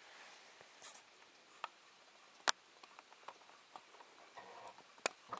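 Faint scattered clicks and light handling noise, with two sharper clicks about two and a half and five seconds in.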